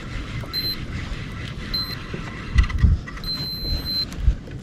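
Electronic beeping: two short high beeps about a second apart, then a longer beep of nearly a second, over low thumps and knocks.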